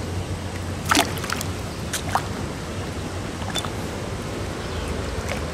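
Shallow river water sloshing around a grass carp being handled in a landing net and released by hand, with several short sharp splashes over a steady low hum.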